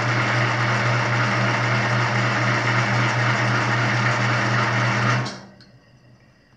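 Laguna MPLAN25 planer's powered table-lift motor running with a steady hum as it drives the table to the 1-inch preset, then cutting off about five seconds in as the table reaches its set height.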